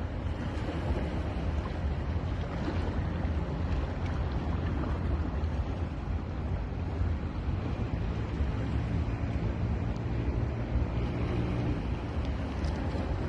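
Ocean surf washing onto a beach: a steady, unbroken rush of waves, heaviest in the low rumble.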